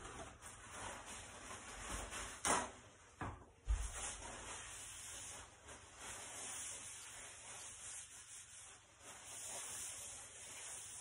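Faint rustling of paper towel being pulled off a roll and wiped over the floor to clean up a broken egg, with a few soft knocks about two and a half to four seconds in.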